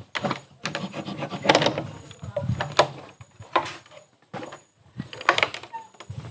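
Footsteps on stony ground: irregular knocks and scuffs at uneven intervals.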